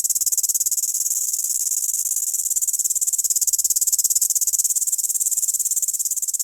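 Grasshopper stridulating: a continuous, high-pitched, rapidly pulsing insect buzz at a steady level.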